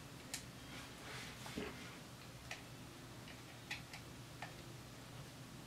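Faint, irregular small clicks of a hex screwdriver and small metal screws and nuts being handled, with a soft rustle of parts between them, as a drone frame is screwed together.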